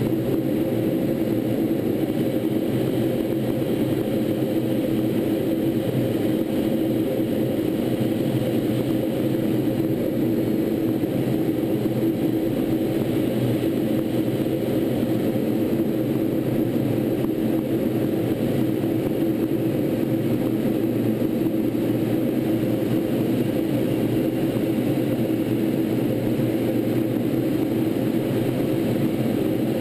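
In-flight noise of a T-38 twin-turbojet chase plane heard from on board: a steady, unchanging drone of engine and rushing air.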